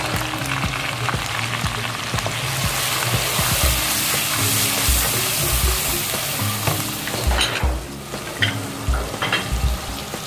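Tomatoes, green chillies and ground spices sizzling in hot oil in a wok, stirred with a wooden spatula that scrapes and knocks against the pan, the knocks coming more often in the second half.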